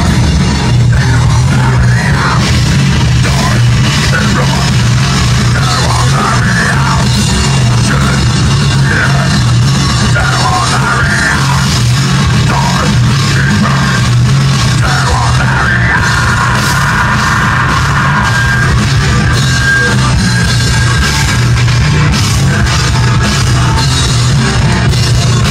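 A metal band playing live and loud: distorted electric guitar and bass over a pounding drum kit, with no breaks.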